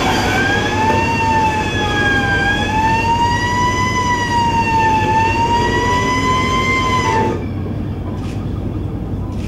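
Fire engine siren sound effect from an animated film's soundtrack, played through loudspeakers in a hall: one slow wail rising and falling in pitch, cutting off suddenly about seven seconds in.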